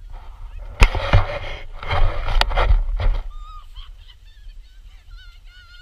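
Plastic bum sled scraping and rattling over packed, bumpy snow for about two and a half seconds, with a few sharp knocks as it hits bumps, over a steady wind rumble on the microphone. Then come high-pitched, wavering squeals or cries.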